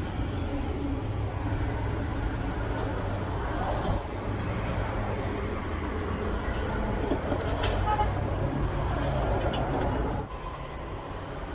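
Steady low rumble of motor vehicle engines, dropping slightly in level about ten seconds in.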